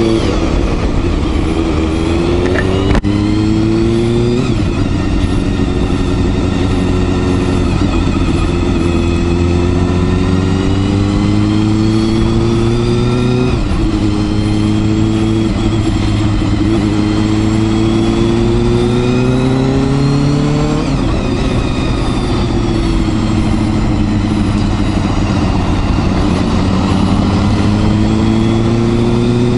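Honda Hornet 250's inline four-cylinder engine pulling under way, its pitch climbing slowly in each gear and dropping sharply at gear changes about 3, 13 and 21 seconds in.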